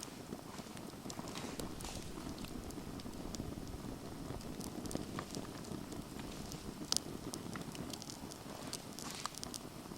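Campfire burning: a steady low rush of flame with scattered sharp crackles and pops from the burning wood, one louder pop about seven seconds in.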